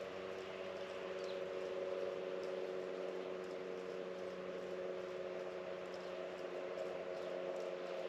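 A steady droning hum made of several held tones, with a few faint, short high chirps over it.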